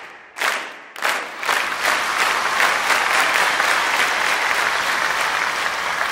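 Two sharp hits in the first second and a half, then a large audience breaks into steady, sustained applause.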